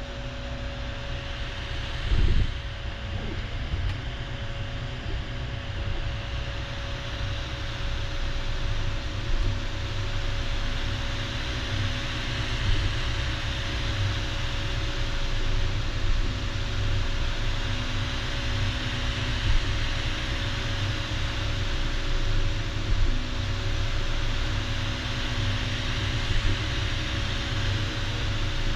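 Elegoo Neptune 3 3D printer running: a steady fan hum and hiss, with the stepper motors whining in stretches of a few seconds as the print head moves, and one thump about two seconds in. The owner takes the printer's odd noise for the nozzle dragging across the print.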